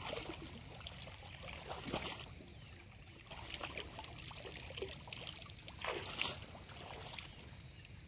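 Shallow pond water making small, irregular plops and trickles, with slightly stronger splashes about two seconds in and again about six seconds in.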